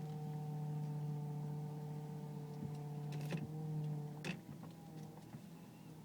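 Power steering whining: a steady pitched whine with overtones that drops and weakens about four seconds in, with a couple of short clicks. It comes when the wheel is turned at low speed; the owner takes it for a worn power steering pump, though a mechanic blamed the rack and pinion.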